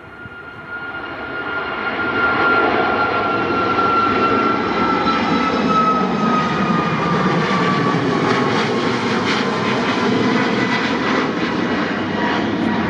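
Boeing 737-8 MAX's CFM LEAP-1B turbofan engines at takeoff climb power, growing louder over the first two seconds as the jet climbs toward the listener, then a steady loud jet roar. A high whine runs through it and slowly falls in pitch as the aircraft passes.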